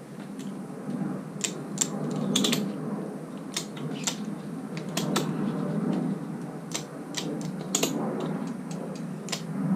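Ratchet strap being cranked tight around a tubeless motorcycle tyre, its ratchet giving irregular runs of sharp clicks over a steady low hum. The strap squeezes the tread's centre so the sidewalls push out toward the rim to seat the bead.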